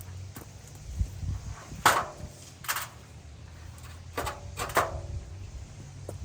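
Four sharp snaps or knocks spread over a few seconds, two close together near the end, a couple of them with a brief ring, over a steady low hum.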